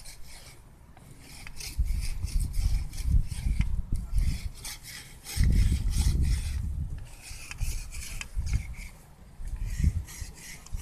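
Hand-worked wooden arrow shaft being rasped in a run of short, irregular scraping strokes, with gusts of low rumble on the microphone now and then.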